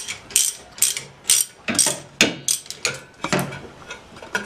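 Socket ratchet wrench being worked back and forth on a bolt, its pawl clicking in about two strokes a second.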